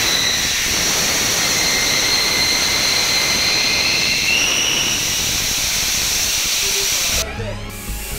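Inert gas fire suppression system discharging through ceiling nozzles in a commissioning test: a loud, steady rushing hiss with high whistling tones over it. It drops off suddenly about seven seconds in.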